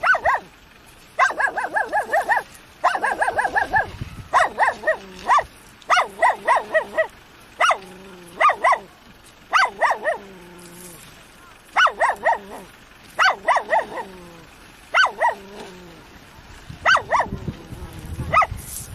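A dog barking over and over: quick runs of two to six high yips, a fresh run every second or two.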